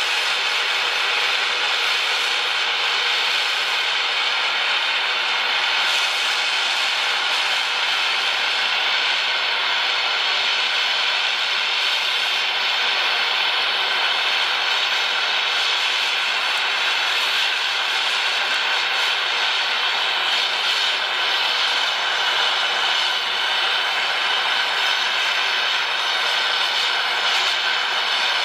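Oxy-fuel gas torch flame hissing steadily while brazing the break in a steel sword blade with a brass filler rod.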